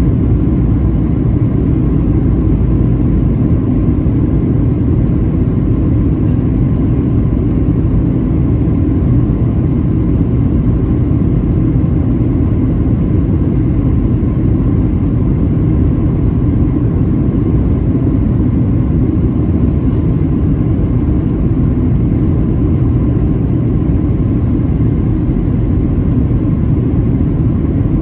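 Cabin noise of a Boeing 737-700 on its descent to landing, heard from inside the cabin: a steady, loud rumble of the engines and air rushing over the airframe, with a faint steady tone above it.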